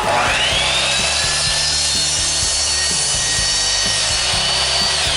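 Electric miter saw cutting through 1.5-inch Schedule 40 PVC pipe. The motor's whine climbs to full speed at the start, holds steady through the cut, and begins to wind down near the end.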